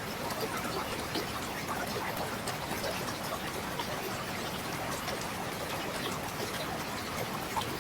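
Mountain river flowing over rocks: a steady rush of water with many small splashes and gurgles.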